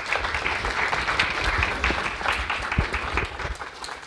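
Audience applauding at the end of a talk, the clapping thinning out and fading over the last second.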